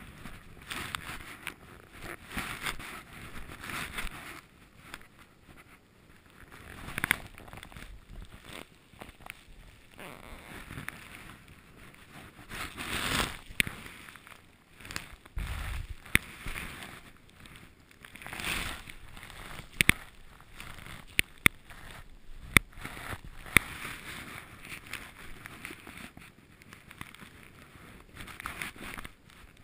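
Skis swishing and scraping through snow in irregular turns, with several sharp clicks or knocks around the middle.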